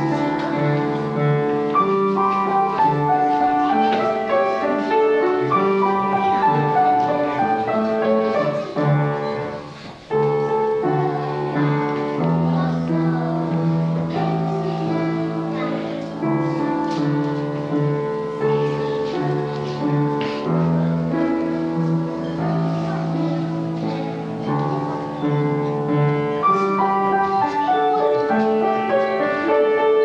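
Instrumental music with piano, played continuously with held, steady notes; it breaks off for a moment about ten seconds in and resumes.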